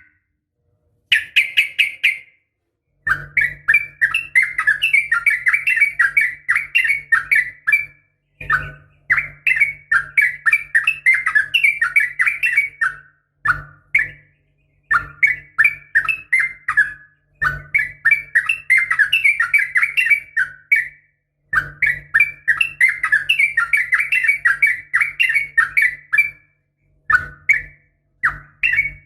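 Yellow-vented bulbul (trucukan) singing in rapid chattering runs of bubbly notes, each run lasting a few seconds and separated by short pauses.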